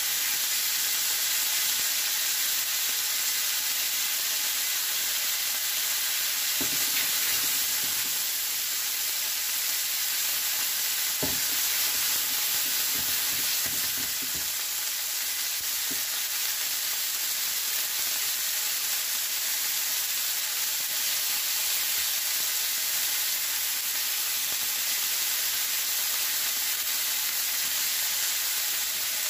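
Thin slices of New York strip loin steak sizzling steadily in oil in a nonstick frying pan. A few faint knocks come in the first half.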